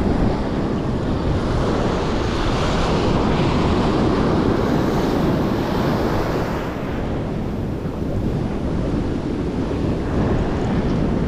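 Shallow surf washing over sand around the wader's legs, a wave surging in and foaming about midway, with wind buffeting the microphone.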